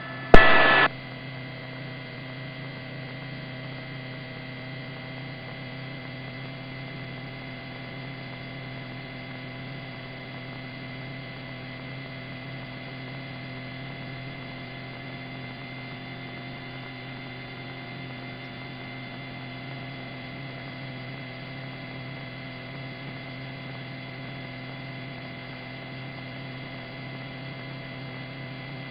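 Steady electrical hum made of several constant tones on the helicopter's radio and intercom audio, unchanging between transmissions. A short loud burst cuts off within the first second.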